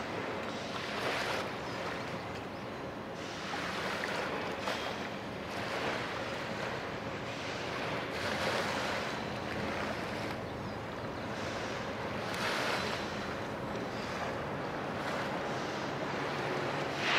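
Outdoor rushing of wind and water by the shore, swelling and easing every second or two, with a faint low steady hum underneath.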